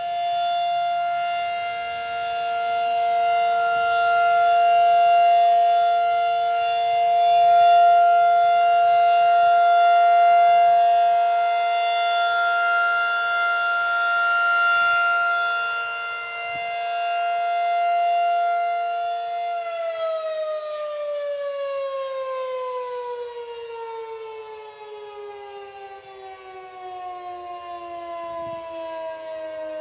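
Federal Signal 2001-SRN outdoor warning siren sounding its full-alert steady tone, a two-note chord that swells and fades in loudness. About 20 seconds in the signal ends and the siren winds down, its pitch falling steadily.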